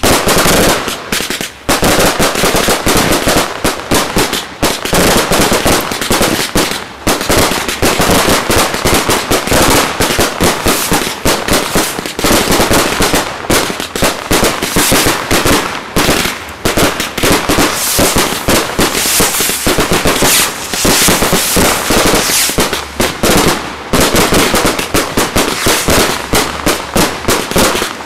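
Aerial fireworks at close range: a dense, continuous barrage of bangs and crackles as shells and multi-shot fireworks burst overhead, many reports a second.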